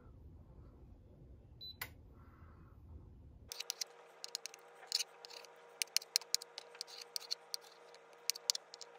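A single beep from a rice cooker's touch panel about two seconds in. Then, from about halfway, a knife slicing a block of firm tofu, its blade tapping again and again on a plastic cutting board in quick, irregular taps.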